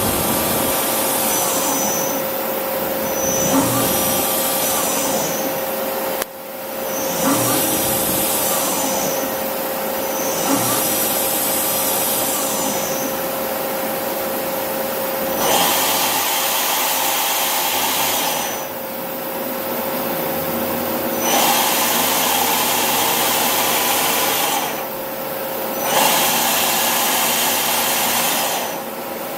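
Miyano BND-51S CNC turn-mill lathe running under power: a steady mid-pitched hum with repeated spells of high whirring hiss that swell and fade, about every three seconds at first, then in longer stretches of several seconds.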